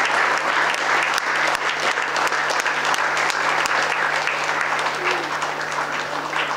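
Audience applauding: a dense crowd of clapping hands, a standing ovation, easing off slightly near the end.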